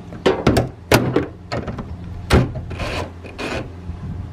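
Hand tools working a hood-hinge bracket bolt under a car hood: a run of irregular sharp metal clicks and knocks, with two short scraping rubs a little past the middle.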